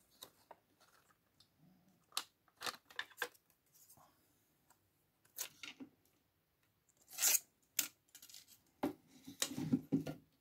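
Plastic parts clicking, scraping and knocking as a CD laser and circuit-board assembly in its plastic frame is pulled out of a Sony micro hi-fi's CD mechanism by hand and set down. Irregular short clicks and scrapes, the loudest in the last few seconds.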